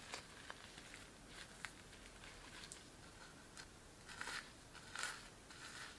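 Flip sequins on a reversible sequin cheer bow brushed by fingers: faint scattered clicks and short rustles, loudest about four and five seconds in.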